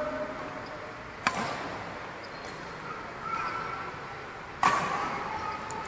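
Two sharp badminton racket strikes on a shuttlecock, about three and a half seconds apart, echoing in a sports hall, the second louder. Faint voices in the background.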